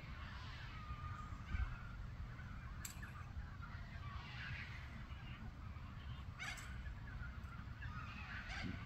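Birds calling in the background, scattered hoarse calls coming and going, over a steady low rumble of wind or handling on the microphone, with two sharp clicks.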